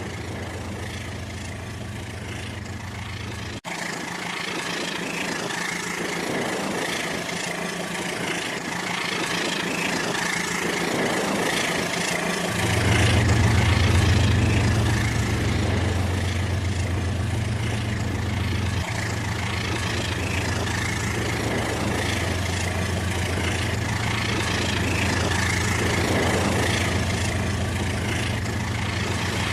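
Rail King battery-powered toy train running on its plastic track: a steady motor whir with track clatter. A deeper hum joins about twelve seconds in and carries on.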